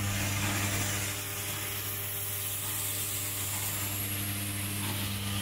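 An automatic micro pump assembly machine running: a steady low electrical hum with an even hiss over it.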